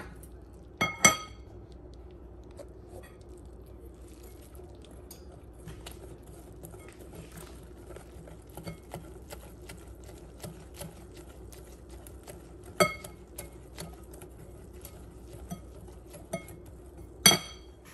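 A utensil stirring flour and water in a glass bowl, with rapid small clicks and scrapes against the glass and three louder ringing clinks. The flour is being worked into a smooth, lump-free paste.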